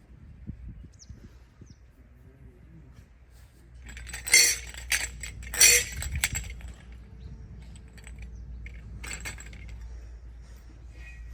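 A few sharp hits made by hands working on the body during a massage. The two loudest come about four and six seconds in, with a lighter one between them and another near nine seconds.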